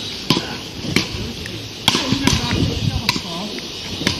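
Paddle rackets striking a small ball in a rally: about six sharp clacks at uneven spacing, roughly one every half second to a second.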